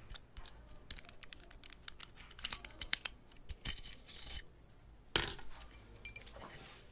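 Scattered electronic clicks and crackles, bunching into a quick flurry about two and a half seconds in, with short bursts of hiss and a louder crackling burst about five seconds in: glitch-style sound effects of an animated title sequence.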